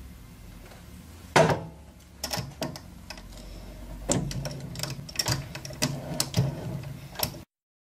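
Gear hobbing of a small metal spur gear: irregular sharp metallic clicks and taps as the hob cutter works the last tooth, over a low steady machine hum. The first click, a little over a second in, is the loudest, and the sound cuts off suddenly near the end.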